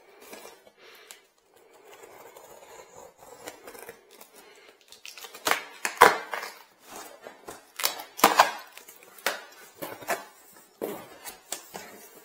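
Cardboard shipping box being cut and pulled open by hand: irregular sharp cracks, scrapes and rustles of cardboard, loudest about six and eight seconds in.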